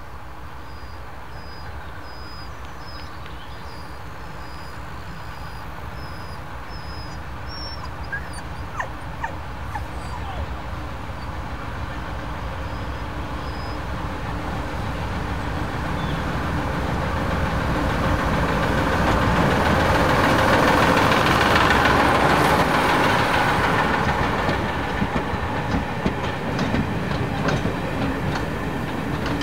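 Heritage train passing close by: the Ruston & Hornsby diesel shunter at its head grows louder as it approaches and is loudest about two-thirds of the way through as it goes past. Near the end the coaches' wheels clack over the rail joints.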